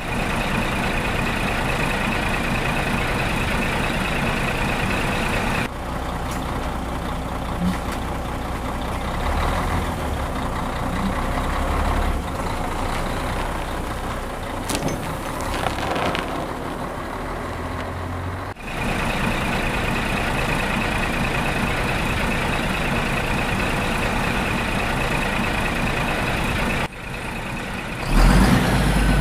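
Heavy vehicle engine running steadily. The sound changes in character about 6 seconds in and again about 19 seconds in, then gets louder near the end.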